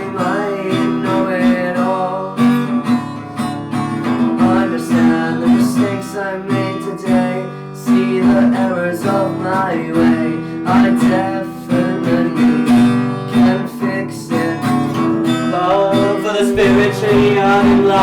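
A band's song playing without sung words: strummed acoustic guitar chords in a steady rhythm, with a melody line moving above them.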